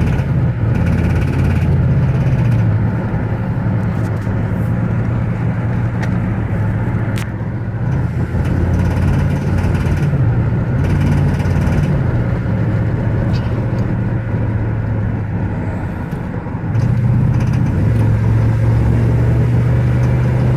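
A Chevy running, heard from inside the closed cabin, with a low hum that shifts in pitch a few times and grows louder near the end. Under it is the constant knock the owner is recording.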